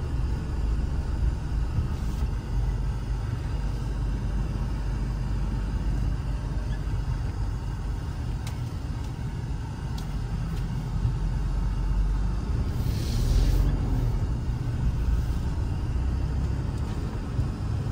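Low steady rumble of a car driving slowly, heard from inside the cabin, with a short hiss about thirteen seconds in.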